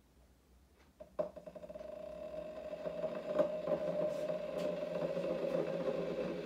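Senseo Latte Duo coffee pad machine starting up: a click about a second in, then a steady hum that grows louder as the machine heats up.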